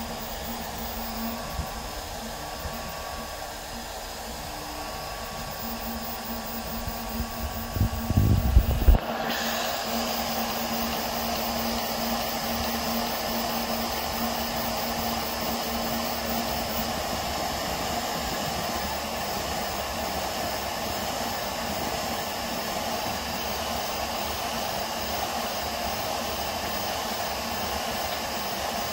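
RatRig V-Core 3 3D printer running a print: the steady whir of its toolhead cooling fans and motors. About eight seconds in there are a few low thumps, after which the whir is louder and brighter.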